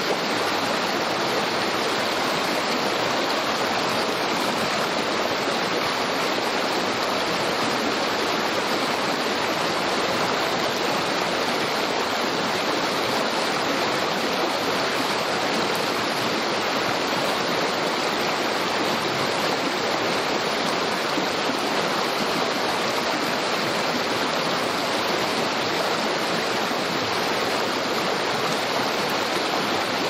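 Small creek rushing and babbling, a steady, unbroken sound of flowing water.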